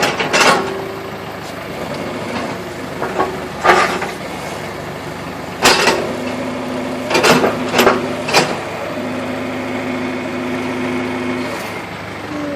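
Backhoe engine running steadily, with a series of sharp knocks standing out above it, several of them bunched together around the middle.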